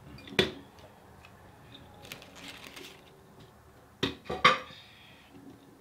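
Objects handled on a tabletop: a sharp knock about half a second in, a short rustle like a paper wrapper a couple of seconds later, and two louder knocks close together near the end.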